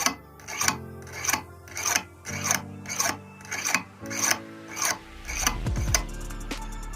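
Knife blade being sharpened with short rasping strokes, about two a second, which stop near the end. Soft background music plays underneath.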